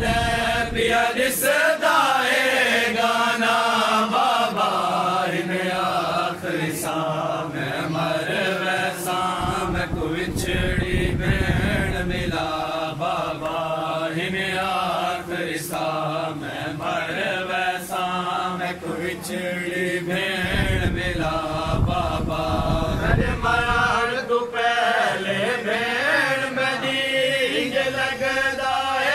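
Men's voices chanting a slow, mournful sung elegy (noha) for Hussain's family, a lead voice carrying the melody.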